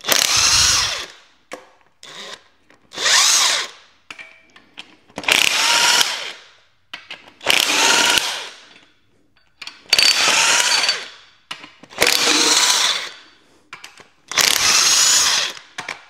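Cordless impact wrench spinning off the connecting rod cap bolts of a 2015 Hyundai Elantra engine. It runs in seven short bursts of about a second each, one every two seconds or so, as each bolt is broken loose and backed out.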